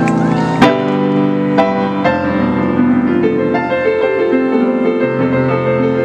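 Piano playing slow sustained chords, entering sharply about half a second in, with a new chord every second or so. A few voices trail off just before it.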